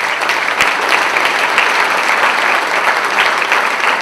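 Audience applauding: a large banquet crowd clapping steadily and loudly.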